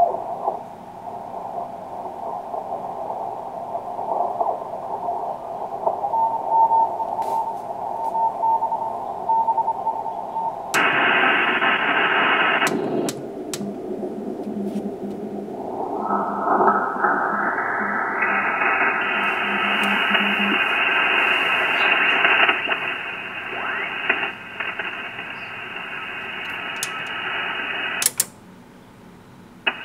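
Receiver audio from a Ten-Tec Jupiter 538 HF transceiver being tuned across the 40 m amateur band: steady static with a Morse code tone through a narrow CW filter. Later the receive bandwidth is opened up in steps, so the hiss turns wider and brighter. The audio drops out sharply near the end.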